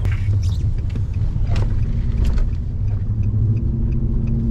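Truck engine running with a low rumble as the truck pulls away, heard from inside the cab, with a few sharp knocks and clicks early on and a steady low hum joining a little past halfway as it gets under way.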